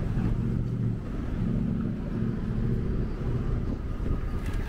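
City street traffic: a motor vehicle's engine running close by, a low, steady noise.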